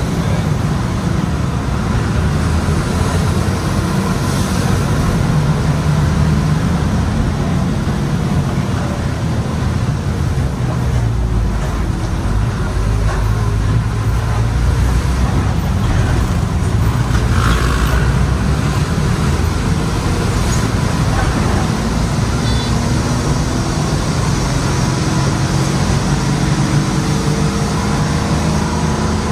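Engine of an old city bus running loud under way, heard from inside the bus. Its note steps up and down with the driving and climbs near the end, over wind and road noise through the open window.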